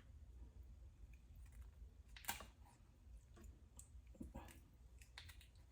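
Faint clicks and snips of kitchen scissors cutting through raw chicken feet, the sharpest snip about two seconds in and a few softer ones near the end.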